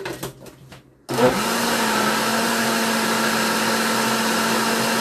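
Countertop blender starting up about a second in after a few clicks at the lid, then running steadily at full speed, blending carrot cake batter with oil and sugar until the sugar dissolves.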